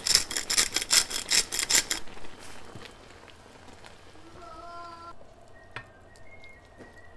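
Salt being added to a simmering pan of vegetables: a quick rhythmic run of scratchy strokes, about five a second, for the first two seconds. After that the pan simmers quietly while a ladle stirs it.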